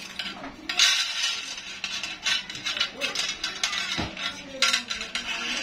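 The flat steel coil spring of a Yamaha 40 hp outboard's recoil starter clinking and scraping against the metal starter housing as it is wound in turn by turn, in a run of irregular metallic clicks.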